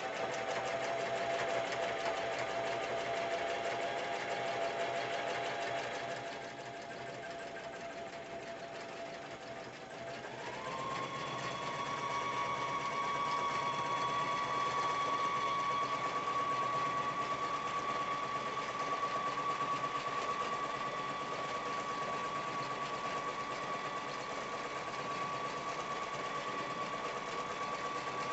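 Brother BB370 sewing machine stitching continuously, free-motion quilting on a quilting frame, its motor giving a steady whine. About ten seconds in the machine speeds up, the whine gliding up in pitch, and it then holds steady at the faster speed.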